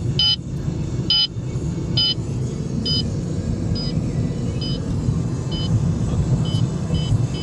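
Beltronics STi Driver radar detector sounding its K-band radar alert: short high beeps about once a second, quickening to about two a second near the end as the photo-radar signal grows stronger. Steady car road noise runs underneath.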